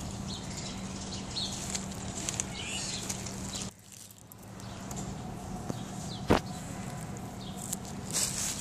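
Outdoor ambience with a steady low hum and a few faint high chirps. The sound drops out briefly a little before four seconds in, and a single sharp knock comes about six seconds in.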